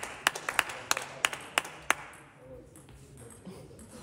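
A few people clapping in a sports hall, separate sharp claps at an uneven pace that stop about two seconds in.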